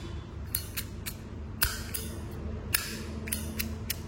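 Zippo lighters being handled: a run of irregular, sharp metallic clicks and clacks, a few with a brief ring.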